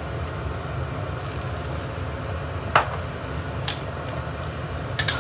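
Steady low kitchen hum with a few short, sharp clicks, the loudest nearly three seconds in.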